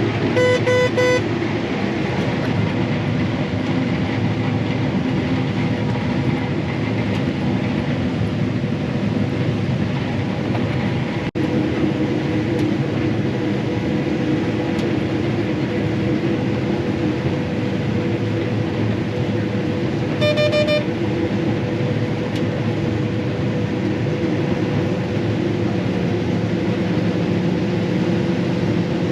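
Combine harvester running steadily under load while harvesting soybeans, with a steady engine drone. A short electronic beep sounds about half a second in and another about twenty seconds in.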